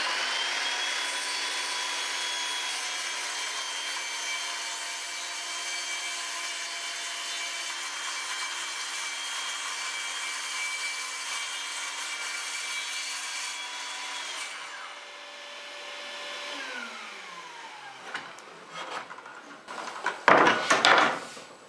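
Circular saw cross-cutting plywood: a steady motor whine under the cutting noise, the cut ending about fourteen seconds in and the motor winding down to a stop a few seconds later, followed by a few knocks as the work is handled near the end.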